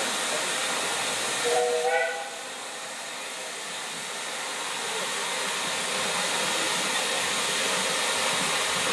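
Narrow-gauge steam locomotive hissing steadily as it blows off steam, with a short toot on its whistle about a second and a half in. The hiss drops back just after the whistle and slowly builds up again.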